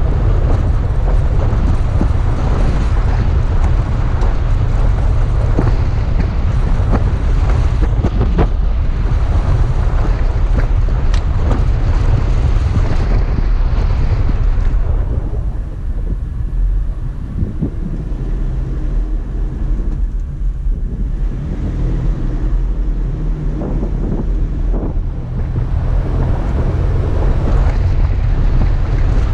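Heavy wind buffeting the microphone, a dense low rumble with scattered knocks. It turns duller and a little quieter for about ten seconds around the middle.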